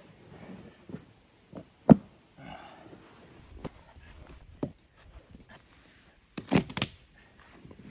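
Sharp cracks and snaps of poplar bark being pried loose and peeled off a felled log by hand, the loudest about two seconds in and a quick cluster near the end, over a low rustling.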